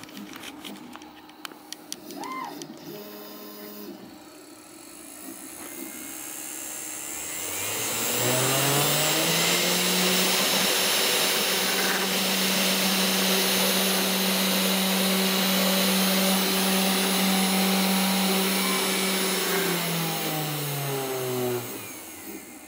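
Spindle motor of a home-built CNC router spinning up with a rising whine, running at a steady high speed with a strong hiss for about ten seconds, then spinning down with a falling whine near the end. A few clicks and short whirs come first.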